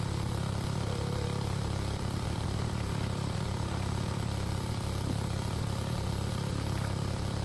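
Small petrol engine of a water pump running steadily at an even, unchanging speed.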